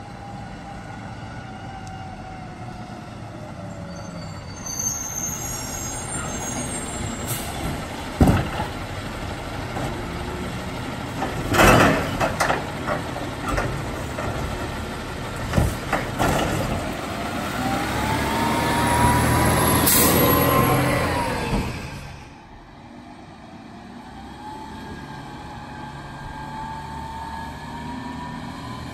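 Peterbilt automated side-loader garbage truck: the diesel engine runs while the arm works a cart, with several loud bangs, then the engine revs up and an air brake hisses. After a sudden drop in level, a truck engine sounds more distantly.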